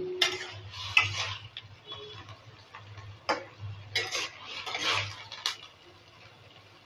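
A metal lid clinks as it comes off a non-stick wok, then a metal spatula stirs and scrapes through the soft-boiled cauliflower and potato, with several sharp clinks of the spatula against the pan.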